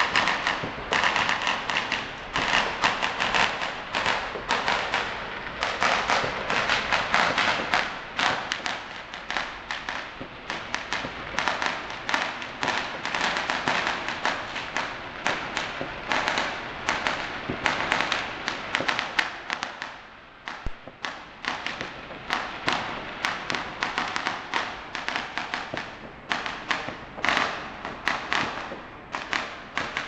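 Chinese New Year firecrackers and fireworks going off in a dense, rapid crackle of bangs, easing briefly about twenty seconds in before picking up again.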